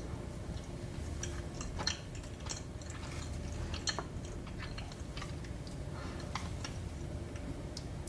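Close-miked chewing of dessert, with soft, irregular mouth clicks and smacks over a steady low hum.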